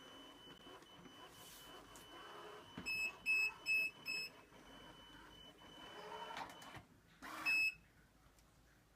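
Electronic beeps from a robot vacuum cleaner: four short beeps in quick succession, then a single beep a few seconds later, over a faint steady high whine.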